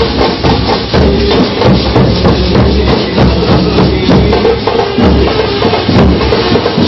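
Loud procession band music with a large drum beaten with a stick and jingling, tambourine-like percussion keeping a steady beat.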